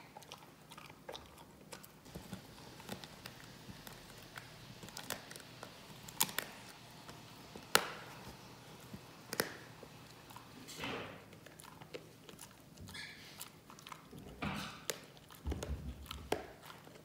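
A dog gnawing a hard chew bone: irregular crunching and sharp cracks, the loudest a few seconds past the middle.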